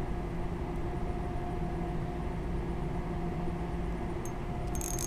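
A steady engine-like hum with a low drone and a few held tones, unchanging throughout.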